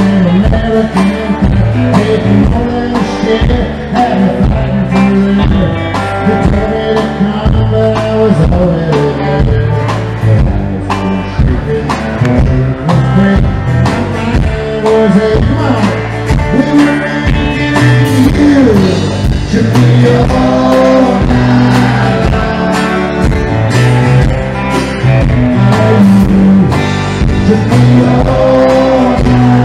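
Southern roots rock band playing live: electric and acoustic guitars over drums and bass, with some singing.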